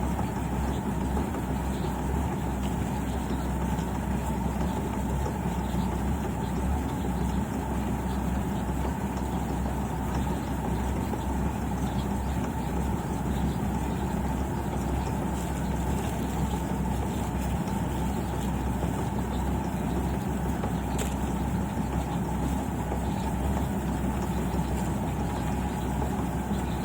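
Rice combine harvester's engine running steadily under working load, a constant unbroken drone with no change in speed.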